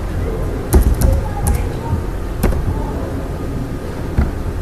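A handful of sharp, unevenly spaced clicks from a computer keyboard and mouse as a spreadsheet formula is edited, over a steady low hum.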